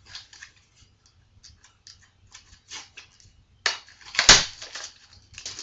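Foil wrapper of a Yu-Gi-Oh booster pack crinkling in the hands with small scattered rustles, then a loud ripping burst a little under four seconds in as the pack is torn open.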